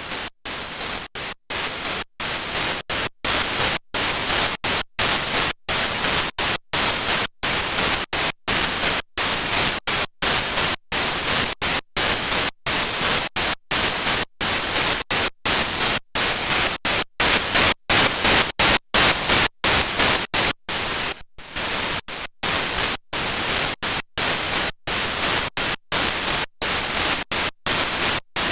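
White noise processed by a Noise of Antimatter Subshaper eurorack module, a subharmonic generator and waveshaper. It is chopped into a steady percussive pattern of hissing bursts separated by short gaps, roughly two a second.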